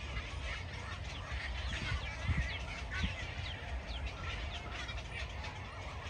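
Many birds calling over one another at a crowded waterbird nesting colony: a dense chatter of short calls, some sliding down in pitch, over a steady low rumble.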